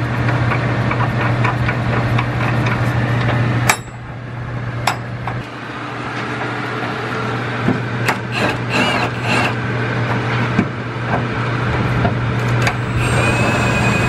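A Milwaukee cordless impact wrench hammers bolts tight on a rear trailing-arm mounting bracket in the second half. It is preceded by sharp metal clicks of bolts being threaded in by hand.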